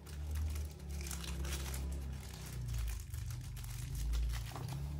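Plastic wrapping crinkling and rustling in many quick, irregular crackles as it is handled.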